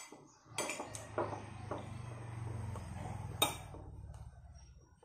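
Spoon and fork clinking and scraping on a plate while rice and fish are scooped up, with one sharp clink about three and a half seconds in, over a low steady hum.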